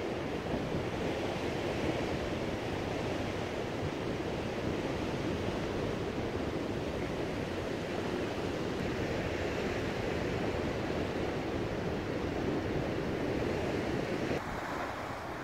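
Ocean surf breaking on a rocky shore: a steady rushing wash of waves, with wind on the microphone. The sound drops a little and changes abruptly about fourteen seconds in.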